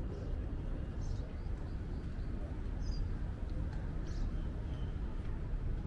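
Wind buffeting the microphone as a steady low rumble, with a few short, high bird chirps over it, about one, three and four seconds in.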